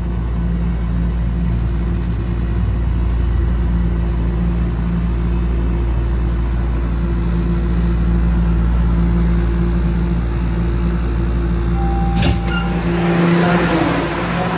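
Toronto Rocket subway train slowing into a station, heard inside the car: a steady low rumble with a motor hum. About twelve seconds in there is a sharp clack, the rumble drops away as the train comes to a stop, and a hiss follows.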